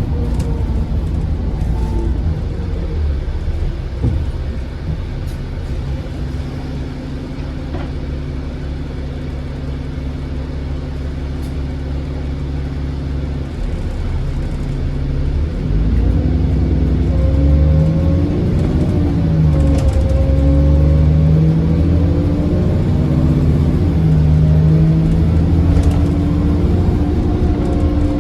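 Turbocharged diesel engine of a bus running steadily, then about halfway through pulling harder and getting louder. Its pitch climbs and drops several times as it runs up through the gears, with a fainter high turbo whistle above the engine.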